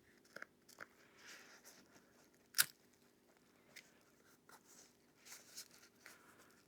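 Faint handling sounds of hands working on nylon backpack webbing: light rustles and small clicks, with one sharper click about two and a half seconds in, over a faint steady hum.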